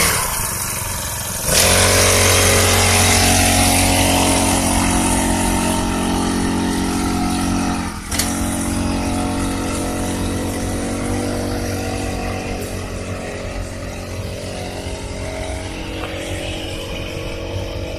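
Small engine of a rice-paddy power weeder running hard, picking up sharply about a second and a half in, dipping briefly around eight seconds in, then running steadily.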